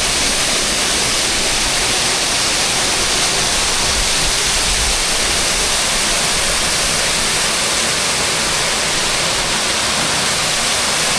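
Waterfall cascade rushing: a loud, steady, even roar of falling water that does not change.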